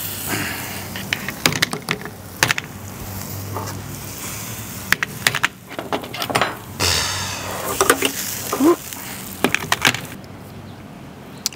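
Metal kebab skewers clinking and scraping against a steel grill box and a metal sheet tray as cooked kebabs are lifted off the charcoal and laid down: an irregular string of sharp metallic clicks.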